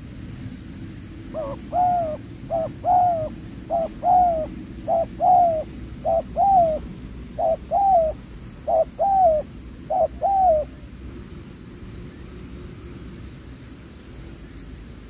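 Spotted dove cooing: a run of about nine paired coos, each a short note followed by a longer, falling one, starting about a second in and stopping well before the end. A steady low rumble lies underneath.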